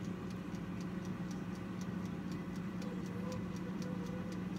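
Rapid, even ticking, about five ticks a second, over a steady low hum.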